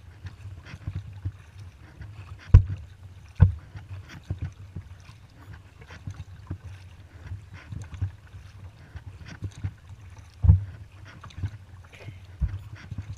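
Kayak paddling: the paddle blades dipping and splashing in the water with many small drips and ticks, and four sharper knocks standing out. A low rumble of light wind on the microphone runs underneath.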